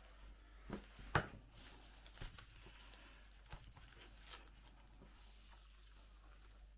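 Faint handling sounds of gloved hands working a spacer strip into the corner of a polycarbonate pane on newspaper: a handful of soft clicks and rustles, the sharpest about a second in.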